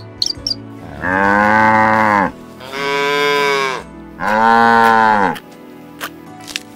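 Cattle mooing: three loud moos in a row, each a little over a second long, each rising then falling in pitch.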